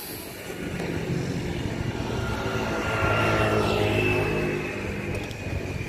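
A motor vehicle's engine running with tyre and road noise, its pitch shifting around three to four seconds in.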